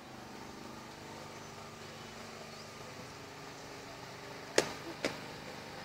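Two sharp clicks about half a second apart near the end, over a faint steady background hum.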